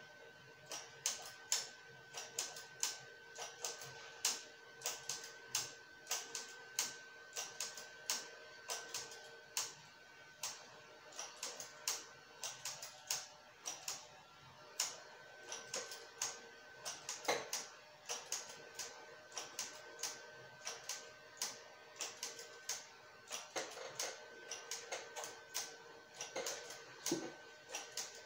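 Sharp, irregular clicks of the metal needles on a flatbed knitting machine, about two to three a second, as stitches are cast off the needle bed by hand. A faint steady whine runs behind them.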